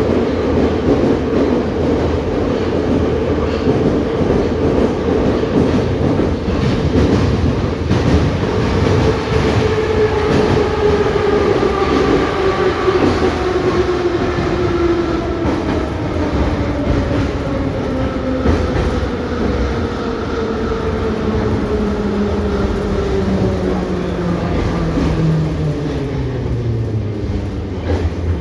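Moscow Metro 81-717.5/714.5 'Nomernoy' electric train heard from inside the car as it brakes into a station. The traction motors and gearing whine steadily lower in pitch as the train slows, over the rumble and clickety-clack of the wheels, and the whine dies away as the train comes to a stop near the end.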